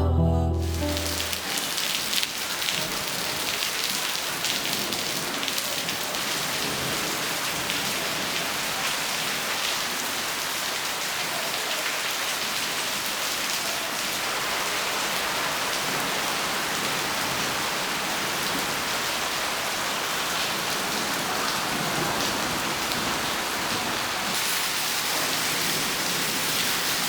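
Steady rain falling, an even, dense patter with no break. A low musical note dies away in the first second or so.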